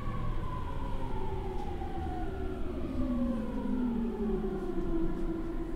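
The traction inverter and motors of a JR E231 series EMU (Mitsubishi IGBT VVVF, unconverted), heard from inside the motor car: a whine of several tones falling steadily in pitch as the train slows, typical of electric braking, over the steady rumble of wheels on rail.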